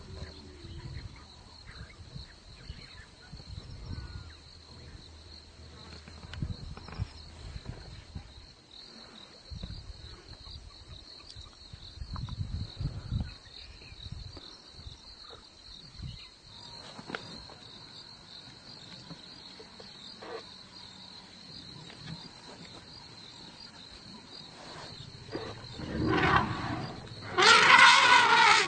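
African elephants trumpeting loudly twice near the end, the second blast longer, over a steady high drone of insects: an aggressive display that a guide calls 'just disturbance', a 'get out of here' at the lions.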